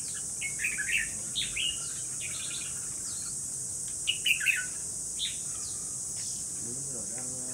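Caged red-whiskered bulbul singing short, warbled phrases in several bursts, the loudest about four seconds in, over a steady high insect buzz.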